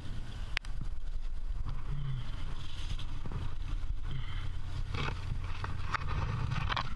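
Steady low wind rumble on a helmet-mounted action camera's microphone, with scraping and a sharp click about half a second in from a trad climber moving on the rock; the scraping picks up near the end.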